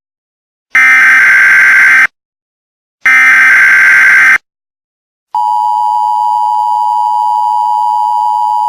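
Emergency Alert System tones. Two loud, screechy data bursts of the SAME header, each just over a second long with a second of silence between. About five seconds in, the steady two-tone EAS attention signal starts and holds.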